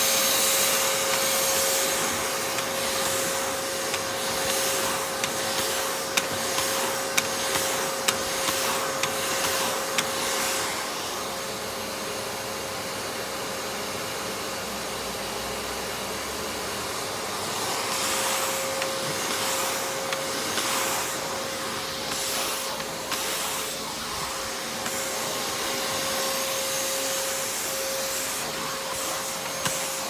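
Craftsman vacuum running steadily with a constant high-pitched motor whine over a rushing airflow hiss, its floor nozzle being pushed over carpet. Scattered sharp clicks and knocks come through the first third and again later, and the hiss softens for a few seconds in the middle.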